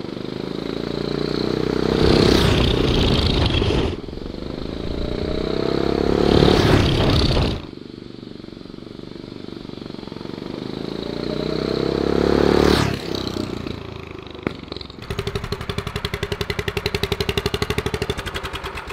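Fuel-injected Predator 420cc single-cylinder engine on a drift trike accelerating at full throttle, running naturally aspirated with the turbo's charge pipe off. Its pitch rises over a few seconds three times, each run cut off suddenly. Near the end the engine idles with a quick, steady pulsing.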